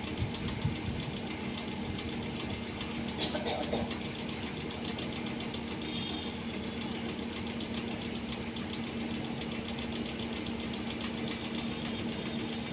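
Steady mechanical hum of a running motor, even throughout, with a brief faint sound a little over three seconds in.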